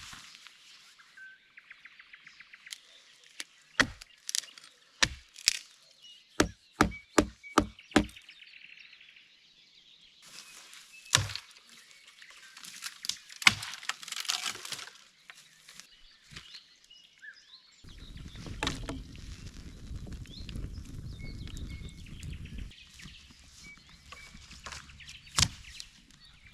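Sharp chopping strikes, as of wood being chopped: a few single blows, then a quick run of five about two and a half a second, then a few more spaced out. Birds chirp faintly throughout, and a low rumbling noise sets in about two-thirds of the way through.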